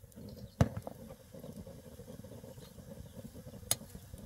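A metal spoon stirring greens in a pan over a wood fire, with a sharp clack against the pan about half a second in and a lighter tick near the end, over a low rumble.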